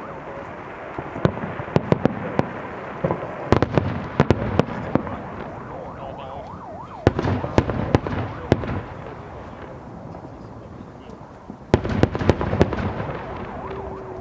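Fireworks display: aerial shells bursting in four clustered volleys of sharp bangs over a continuous rumble of bursts, the loudest volleys about four seconds in and near the end.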